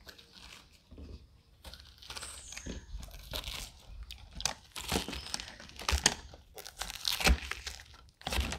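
Metal spoon scraping and scooping seeds and stringy pulp out of a halved pumpkin, in irregular wet, crunchy strokes that come thicker and louder in the second half.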